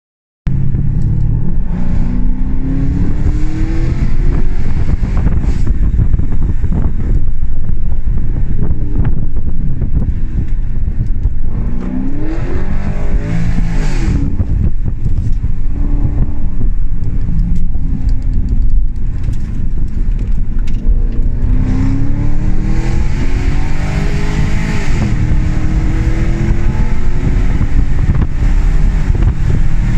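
Porsche Cayenne V8 with straight-piped exhaust and no muffler, heard from inside the cabin while driving. The loud engine note climbs under acceleration three times, near the start, in the middle and toward the end, each time falling away again, with a steady drone in between.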